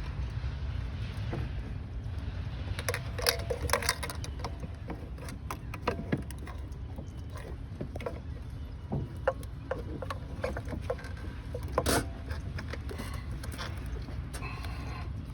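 Scattered clicks and knocks of tools and parts being handled, clustered about three to four seconds in, with the sharpest knock about twelve seconds in, over a steady low rumble.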